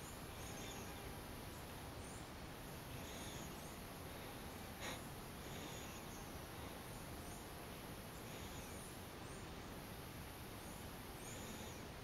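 Faint forest ambience: a steady hiss with faint, short, high chirps recurring every second or so, and a single sharp click about five seconds in.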